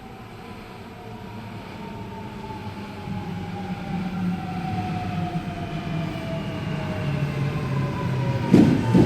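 Electric passenger train approaching and growing louder, its motor whine sliding slowly down in pitch as it slows. A sharp loud knock about eight and a half seconds in.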